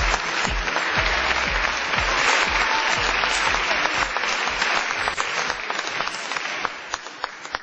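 Crowd applauding, with music still playing underneath; the clapping thins to a few scattered claps near the end.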